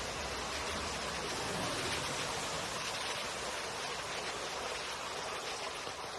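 Steady rushing of floodwater, an even unbroken noise.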